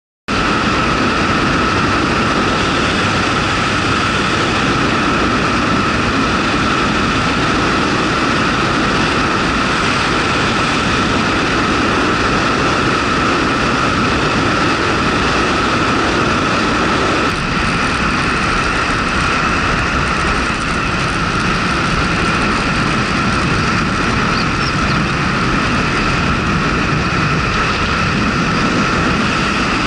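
Honda Super Cub 110's small air-cooled single-cylinder engine running steadily while the bike is ridden, mixed with road noise.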